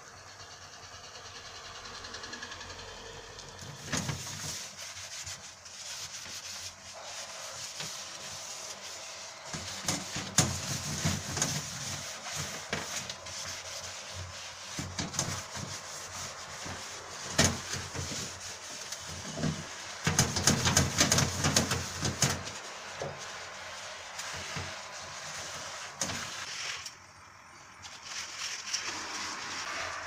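Hand scrubbing the foamy, greasy inside of a countertop electric oven, an irregular rubbing and scraping that starts a few seconds in and comes in uneven strokes with several louder bursts.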